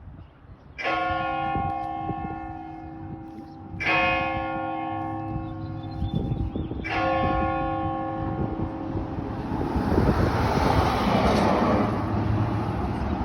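Church bells ringing: a bell is struck three times about three seconds apart, each stroke ringing on with many overtones. Then, from about two-thirds of the way in, the ringing thickens into a louder, denser wash of overlapping strokes.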